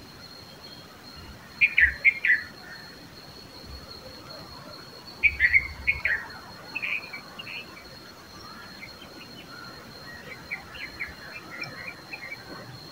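Red-vented bulbuls calling: two bursts of loud, short chirping notes about two and five seconds in, then softer scattered chirps.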